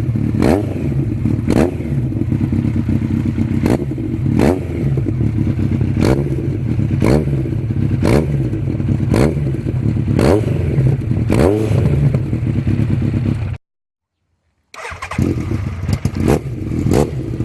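Yamaha XJR1300's air/oil-cooled inline-four running through an aftermarket silencer, with a short throttle blip about once a second. The sound breaks off completely for about a second about two-thirds of the way through, then the engine is heard again.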